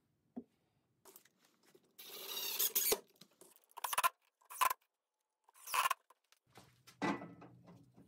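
Cordless drill driving screws through a lathe faceplate into the end grain of a log, in several short bursts, the first about a second long and the rest briefer. A low steady hum comes in near the end.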